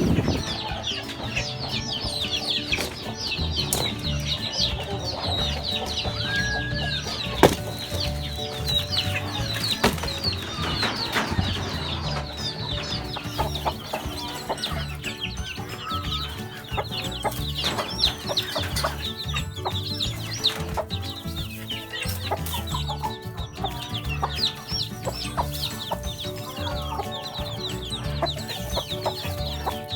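Many young chicks peeping, a dense continuous chorus of short high cheeps, with a hen clucking among them, over background music.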